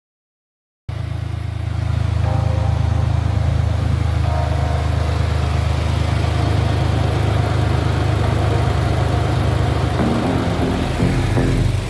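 A car engine running steadily, cutting in abruptly about a second in and holding an even, low hum.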